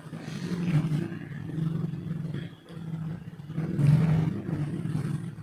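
A man groaning and growling in long, low, strained stretches broken by short pauses, loudest about four seconds in: the patient's reaction under the therapist's pressure.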